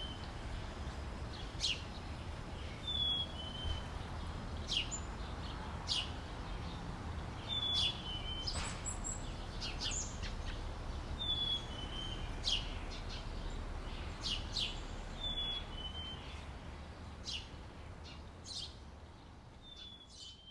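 Outdoor summer ambience of birds: one bird repeats a short two-note falling whistle every three to four seconds among sharp chirps from other birds, over a low steady rumble. It fades out near the end.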